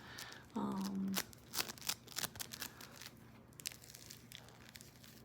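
Playfoam bead modeling foam being squeezed and pulled apart by hand, giving irregular sticky crackles and small tearing clicks. A short hum about half a second in.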